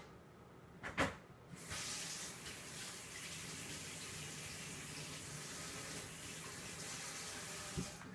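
Kitchen tap running water into a sink for about six seconds, after a single knock, and shut off just after a short clunk near the end.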